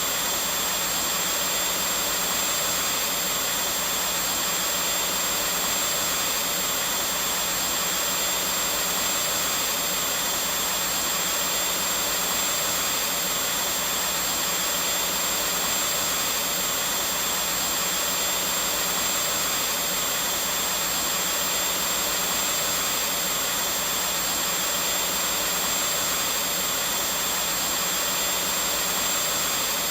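Vacuum cleaner running steadily, a constant whooshing motor noise with a thin high whine, unchanging throughout.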